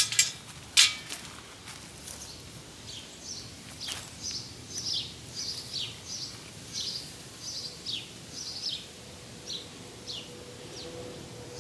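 A songbird singing a regular series of short, high chirps that fall in pitch, about one or two a second. A few sharp clicks come in the first second.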